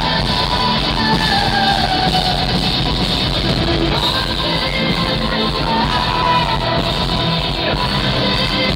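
Symphonic metal band playing live in a hall: a woman's lead vocal sung over electric guitar and keyboards, loud and continuous.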